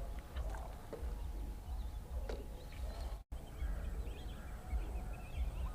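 Quiet outdoor ambience by water: a low wind rumble on the microphone with faint, scattered bird chirps, broken by a brief dropout to silence about three seconds in.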